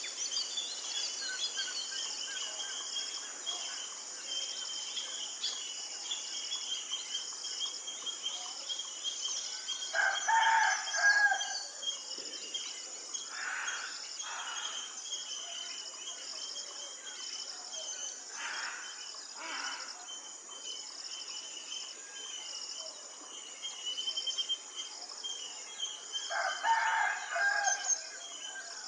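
A rooster crowing twice, about ten seconds in and again near the end, over a steady high chorus of insects, with a few shorter calls in between.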